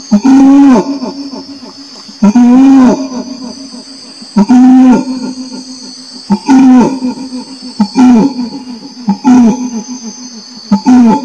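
Orangutan calling: a series of low, arched hoots, seven in all, about two seconds apart at first and coming closer together near the end. A steady high buzz of insects runs underneath.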